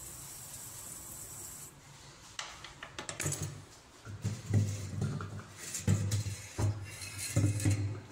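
Steady hiss of a hand sprayer's brass lance nozzle jetting anti-termite chemical into the wall-floor joint, stopping after about two seconds. Then irregular knocks, scrapes and low thuds as the lance is lifted and moved along the floor.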